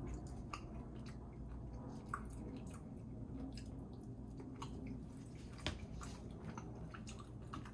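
A person chewing a mouthful of macaroni and cheese, with soft wet mouth clicks and smacks at irregular intervals.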